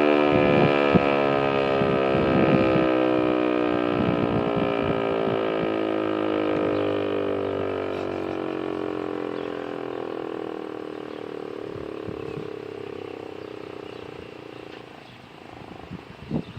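American Signal T-128 outdoor warning siren winding down at the end of its test: its tone glides steadily lower and fades away over about fifteen seconds.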